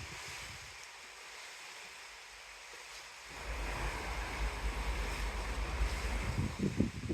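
Wind blowing across the microphone over the rush of the open sea below a ship. The wind picks up sharply a little over three seconds in, with heavy low buffeting and a few stronger gusts near the end.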